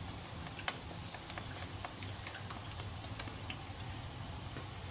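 Soy-sauce gravy boiling in a pan on a gas stove, with scattered small pops and ticks from the bubbles over a low steady hum.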